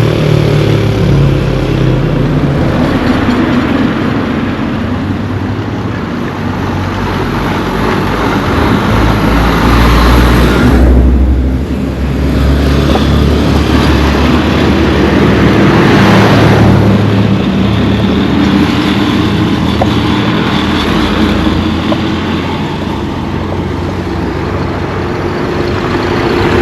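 A motor vehicle's engine running as it travels along a road, with continuous road and wind noise that swells and fades.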